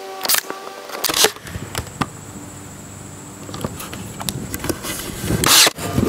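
Cordless nailer firing nails into a pine board with sharp clacks, twice in about the first second. Then the wooden piece is handled, with small knocks and a louder knock of wood near the end.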